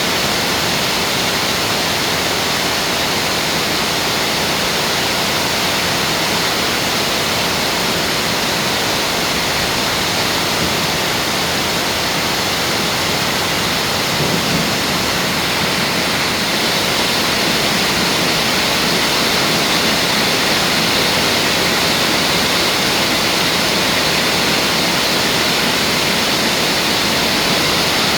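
Heavy rain pouring down steadily in a storm.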